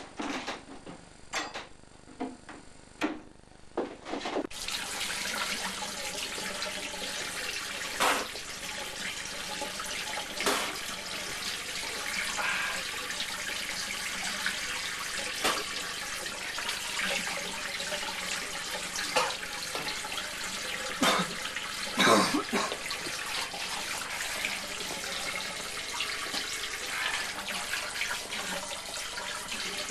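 A few knocks, then a bathroom tap starting about four and a half seconds in and running steadily into a washbasin. Splashes break through several times as cupped hands scoop water up to the face.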